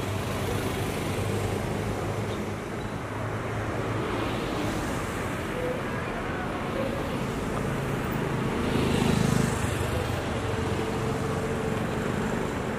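City street traffic: vehicles passing with their engines running, over a steady hum of traffic. One vehicle passes close and louder about nine seconds in.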